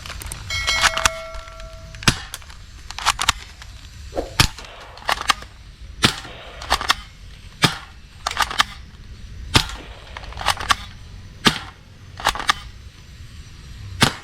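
Toy gun firing single shots: sharp cracks at uneven intervals, roughly one or two a second, with a brief electronic tone near the start.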